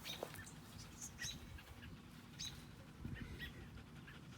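Small bird chirping: short, high, separate chirps, about half a dozen scattered over a few seconds, over a faint low rumble.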